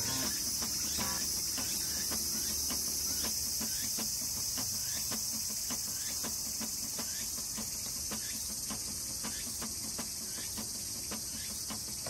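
A steady, high-pitched chorus of insects, with faint regular ticking underneath.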